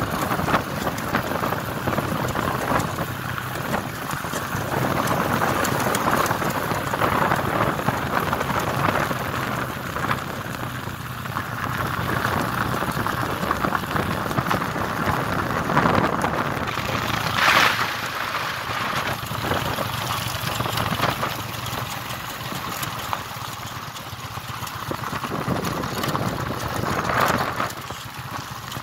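Motorcycle on the move over a rough road: a low engine hum under a steady rushing noise of tyres and air, with a brief louder rush a little past halfway.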